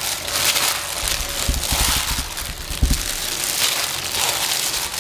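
Rustling and crinkling from a plastic-gloved hand tossing a glass noodle salad of fresh leafy greens in a glass bowl. A few low thuds come around the middle.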